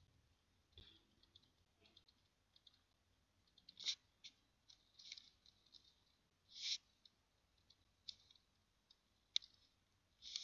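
Faint, irregular clicks and taps of a computer mouse and keyboard, with a few sharper taps standing out among softer ones.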